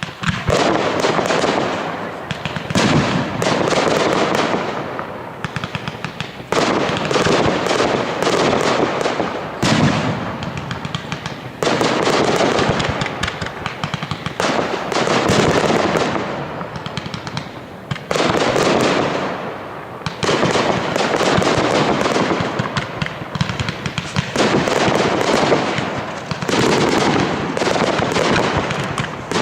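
Fireworks display: a loud burst every few seconds, each trailing off in a long run of crackling.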